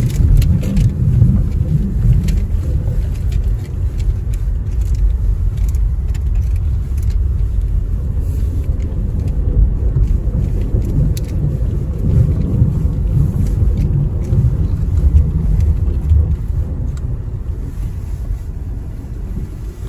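Car cabin rumble: engine and tyre noise heard from inside a car driving slowly over a snow-covered driveway, a steady low rumble with faint scattered clicks. It gets somewhat quieter near the end as the car nears the garage.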